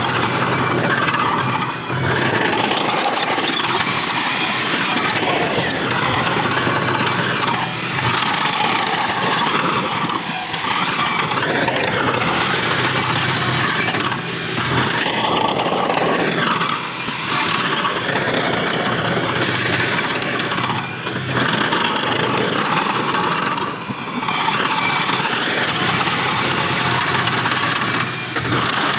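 Heavy earthmoving machinery at work: diesel engines running under load in a loud, dense noise that dips briefly every few seconds.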